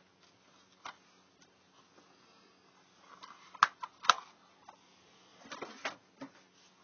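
Hard plastic DVD case being handled, giving a few sharp clicks and knocks. The two loudest come about half a second apart near the middle, and a quick cluster of clicks follows near the end.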